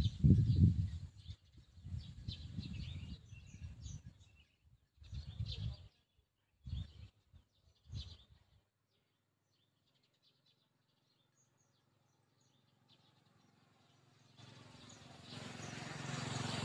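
Gusts of wind buffeting the microphone, with birds chirping, dying away to near quiet about halfway through. Near the end a motorcycle approaches, its engine growing steadily louder.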